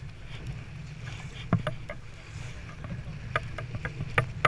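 Small sailboat under way: a steady low rush of wind and water along the hull, broken by a scatter of sharp clicks and knocks, the loudest about one and a half seconds in and several close together near the end.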